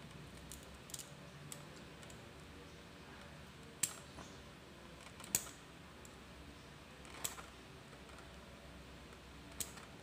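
Sparse sharp clicks and small knocks from handling electrical wires and tools on a workbench, about five or six spread over several seconds, the two loudest a little past the middle, over a faint low hum.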